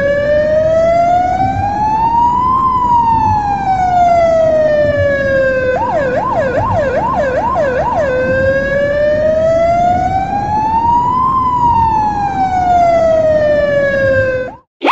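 Ambulance siren. It goes through a slow rising-and-falling wail, switches for about two seconds to a fast warbling yelp, then returns to the slow wail before cutting off near the end. A low rumble runs underneath.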